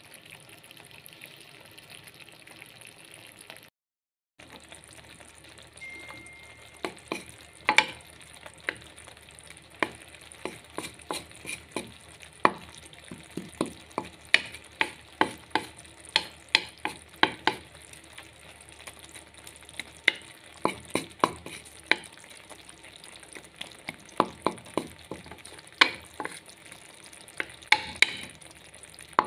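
Chopped leafy greens frying in oil in a metal pan with a steady sizzle. From about six seconds in, a wooden spatula stirs them, knocking and scraping against the pan in runs of sharp clicks.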